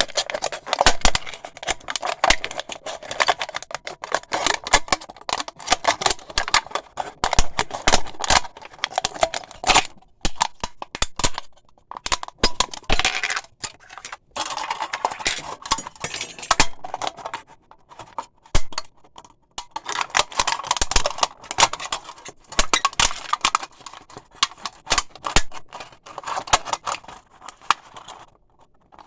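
Razor blade cutting through aluminium pop cans: dense scratching and crackling strokes, broken by a few short pauses.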